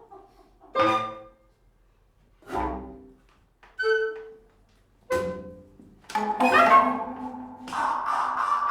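Live instruments, bowed strings among them, playing in separate short bursts: about five notes or chords, each dying away within a second. Near the end several instruments sound together in a longer, louder held passage.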